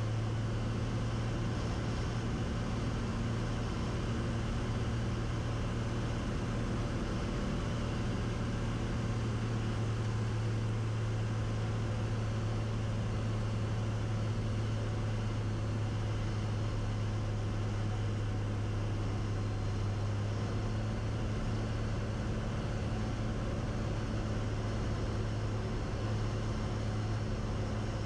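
Cessna 180's six-cylinder Continental O-470 engine and propeller droning steadily on final approach to landing.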